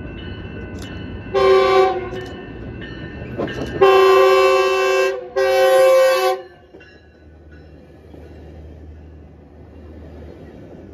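Commuter train's diesel locomotive sounding its horn: one short blast about a second and a half in, then two longer blasts, each a chord of several tones. The locomotive and its bi-level coaches then rumble past close by.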